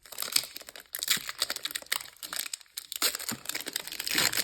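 Crinkling of a Pokémon card booster pack's foil wrapper being handled: a dense run of crackles with a short lull about two and a half seconds in.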